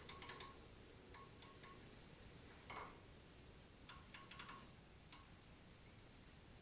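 Near silence: room tone broken a few times by faint clusters of light ticks and one brief soft scrape.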